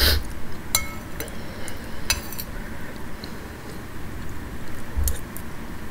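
Metal spoon clinking against a bowl while scooping pozole soup: a few light clinks, some with a short ring.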